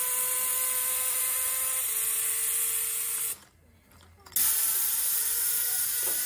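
Steam whistle of a ride-on live-steam miniature locomotive blowing: a long, hoarse, hissing blast with a low steady tone that drops slightly in pitch partway through and cuts off about three seconds in, then a second long blast about a second later, sounded before the train departs.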